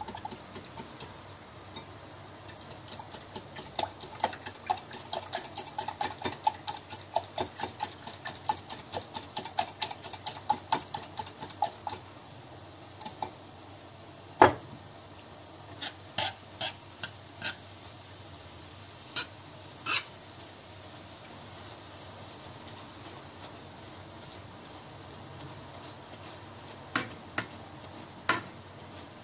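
Wire whisk beating eggs in a glass bowl: rapid clinking strokes, about four a second, that stop after about twelve seconds. A few separate knocks follow, and near the end a metal spatula knocks in the frying pan of mince.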